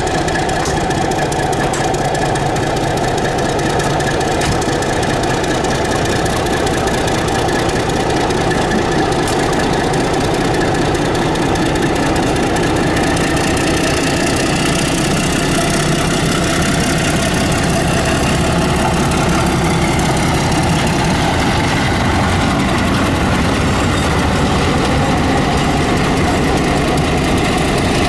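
Diesel engine of a metre-gauge locomotive running steadily at idle, an even, unchanging throb.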